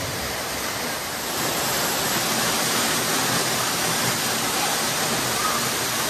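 Hedge Creek Falls, a narrow waterfall, splashing into its rock pool: a steady rush of falling water that grows a little louder about a second in.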